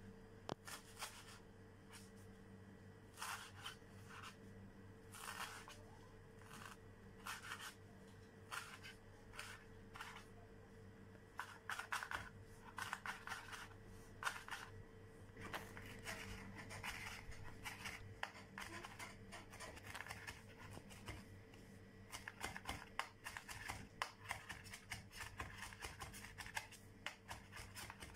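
Kitchen knife chopping parsley on a wooden cutting board: sharp knocks of the blade on the board, spaced out at first and turning into rapid chopping about halfway through.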